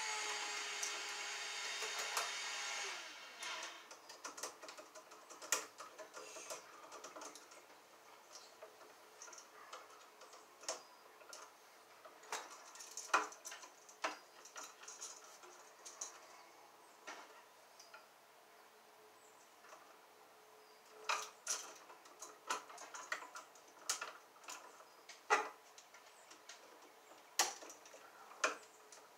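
Hand tools working electrical wire at a junction box: scattered clicks, snips and small rattles as pliers cut and twist copper conductors and wire nuts are handled. A steady whine runs for the first three seconds, then stops.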